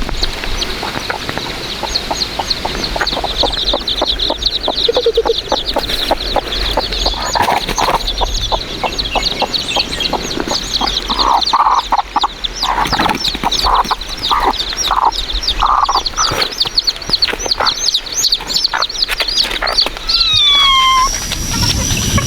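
Chickens clucking: a steady stream of rapid high-pitched peeping, a run of about seven lower clucks in the middle, and a couple of falling calls near the end.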